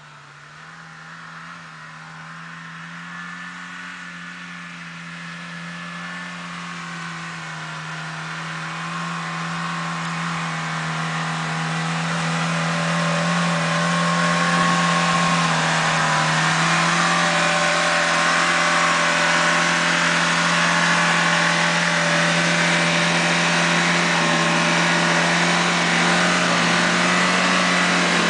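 Engine of a Suzuki SJ-series 4x4 pulling steadily in low gear up an off-road track, its pitch nearly constant. It grows louder over the first half as the vehicle approaches, then stays loud as it passes close by.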